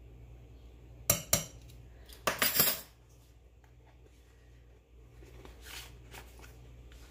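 Metal measuring spoons clinking against a stainless steel saucepan: two sharp taps about a second in, then a short rattle of clinks a second later, with a few faint ticks near the end.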